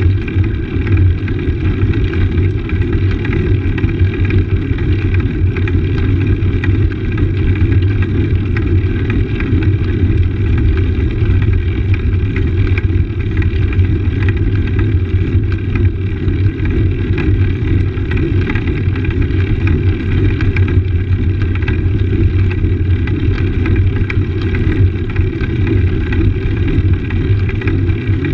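Road bike's tyres rumbling over stone paving, picked up by a camera mounted on the handlebars along with wind on the microphone: a loud, steady rumble.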